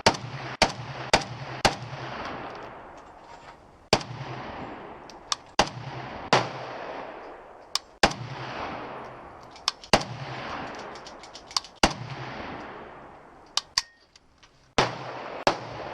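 Gunshots on a firing range: more than a dozen shots at irregular intervals, some louder and some fainter, each followed by a trailing echo.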